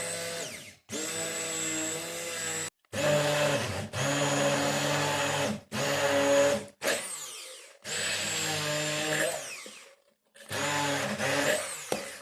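Electric hand blender puréeing boiled carrots, its motor run in about six bursts of one to three seconds with a high whine, switched off and on in between. Between some bursts the pitch falls as the motor spins down.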